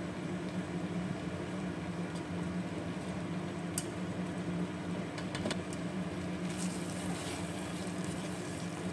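Steady hum and whir of an electric cooktop running under a steel pot of cooking milk mixture. A few light ticks of a spoon against the steel pot come about four seconds in and again a second and a half later.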